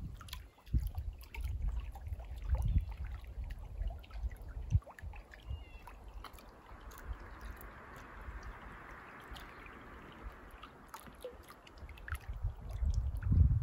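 Water trickling and lapping, with a gusty low rumble coming and going; for a few seconds in the middle a steady rush of water stands out while the rumble drops away.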